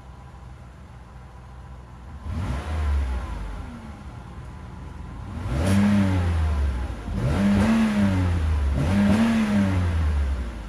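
Pontiac G6 GT's 3.5-litre V6 idling through its exhaust, then revved four times, the last three harder, each rev climbing and dropping back toward idle.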